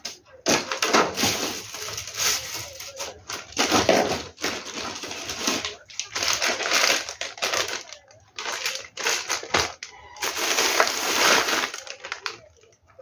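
Plastic snack wrappers and plastic bags crinkling and rustling in irregular bursts as they are handled.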